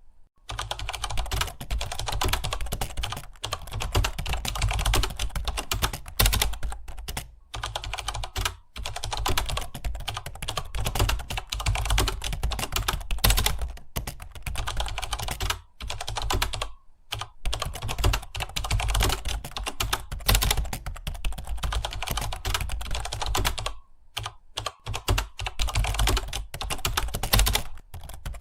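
Fast, continuous typing on a computer keyboard, a rapid run of key clicks broken by a few pauses of under a second.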